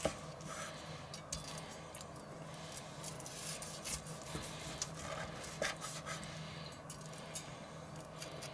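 A knife sawing slices off a grilled duck breast on a wooden cutting board, with scattered light scrapes and clicks of the blade and carving fork, over a steady low hum.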